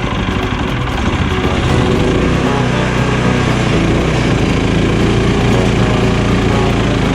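Portable band sawmill's small gasoline engine running, getting louder about a second in as the blade cuts into a Douglas fir log.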